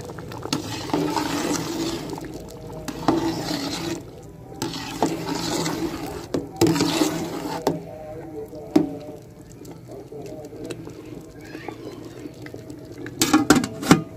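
A long metal slotted ladle stirring rice through sugarcane juice in a large aluminium pot: several sloshing strokes with knocks and scrapes against the pot wall. Just before the end come a few sharp metal clanks from the aluminium lid being handled.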